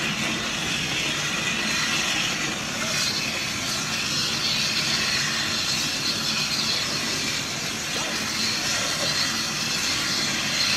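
Steam train running: a steady hiss and rumble of rail and steam noise, even throughout, with no distinct exhaust beats standing out.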